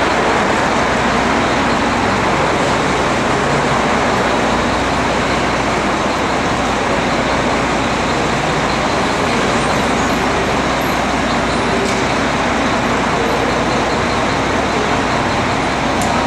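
Steady, even city traffic noise, with no separate events standing out.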